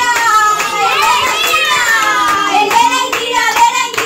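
A group of children and adults singing together, with hands clapping in a rough beat through the second half.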